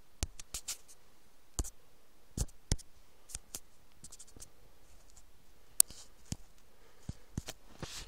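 Scattered, irregular light clicks and short scratchy scrapes, with one sharp click a little before six seconds in.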